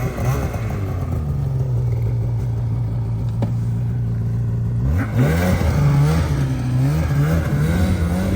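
Snowmobile engine running steadily, then revved in repeated throttle blips from about five seconds in, while the sled is stuck in thin snow over rocks.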